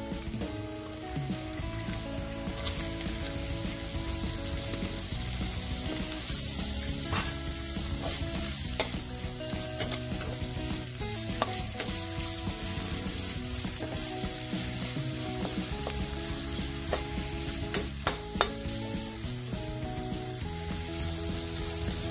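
Sliced onion rings sizzling in hot oil in an aluminium frying pan, in the fat left from frying pork. The sizzle grows louder a few seconds in. A metal slotted spatula stirring the onions clicks and scrapes against the pan now and then, several times close together near the end.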